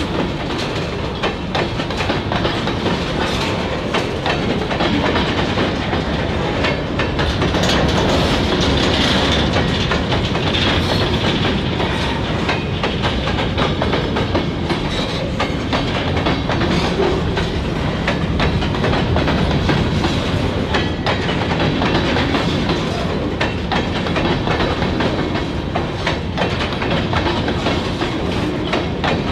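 Open-top hopper cars of a freight train rolling past at a steady speed, their wheels clicking and clattering on the rails in a continuous clickety-clack.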